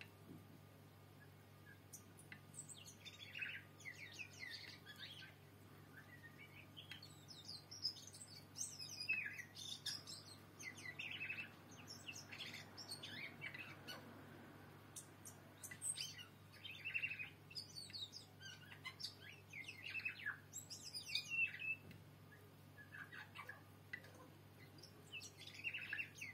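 A bird or birds singing in a tree: fairly faint, short, varied high chirping phrases every second or two, over a faint steady low hum.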